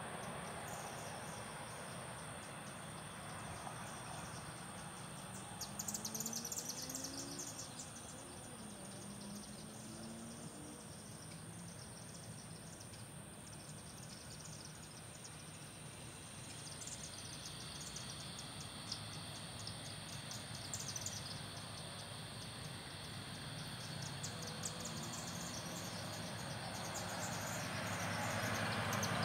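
Insects chirping in bursts of rapid high trills that come and go several times, over a faint steady background and a constant thin high tone.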